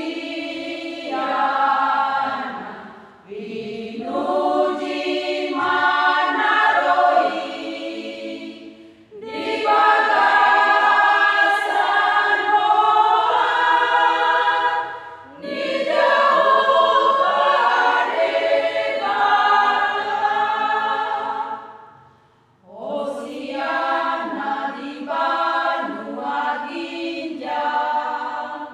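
Women's church choir singing a hymn unaccompanied, in long phrases with a short break for breath about every six seconds.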